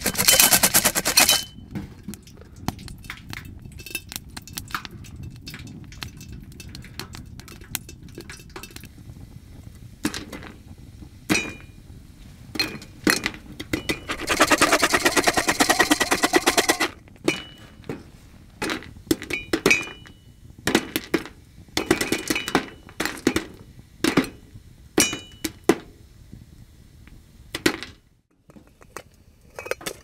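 Popcorn kernels popping inside a lidded metal pot on a small wood stove, sharp pops scattered throughout. There are two spells of loud rattling as the pot is shaken on the stovetop, one right at the start and one about halfway.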